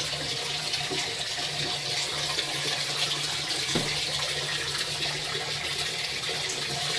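Water running steadily from an open hot-water tap, a constant rush with a faint low hum beneath, as the water heater's tank is run down to cool water.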